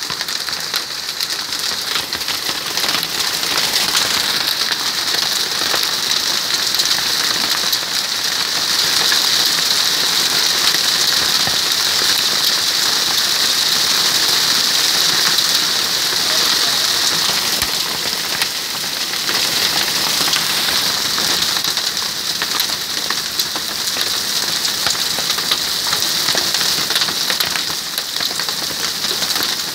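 Hailstones about an inch across pelting a wooden deck together with heavy rain: a dense clatter of countless small impacts over a steady hiss. It builds a few seconds in, is heaviest through the middle, and eases a little later on.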